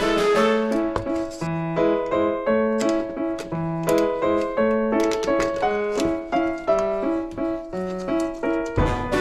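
Background music: a piano-like keyboard tune played in a steady, regular rhythm of short notes.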